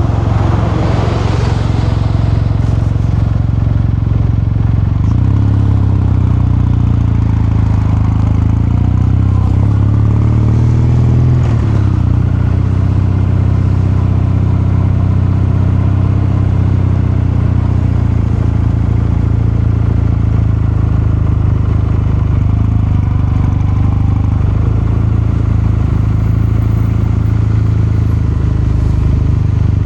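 Kawasaki Meguro K3's air-cooled parallel-twin engine and exhaust running. The revs climb gradually from about five seconds in, fall back around twelve seconds, then hold steady.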